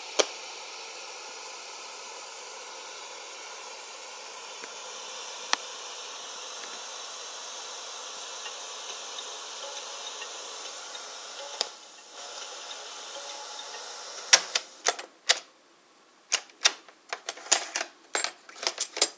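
Sanyo M-W15K boombox giving a steady hiss through its speakers, broken by a few single switch clicks. About fourteen seconds in come a quick run of loud plastic clicks and clacks as the cassette decks' piano-key buttons are pressed and the cassette doors are opened.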